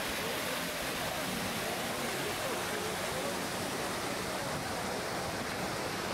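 Water splashing steadily from a large stone fountain, Bernini's Fountain of the Four Rivers, with faint voices of a crowd underneath.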